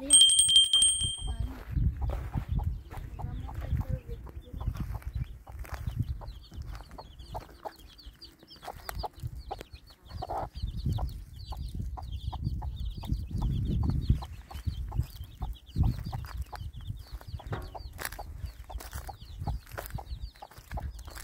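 Chickens clucking, with fast high chirping joining in about four seconds in and running on. A short high steady tone sounds right at the start.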